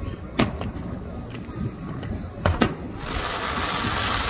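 Aerial fireworks shells bursting with sharp bangs: one about half a second in and two close together around two and a half seconds in. A steady hiss follows from about three seconds in.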